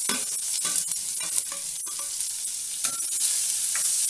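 Chopped onions frying in hot oil in a stainless-steel kadai, a steady sizzling hiss as they are stirred with a spoon, with a couple of sharp clicks of the spoon against the pan.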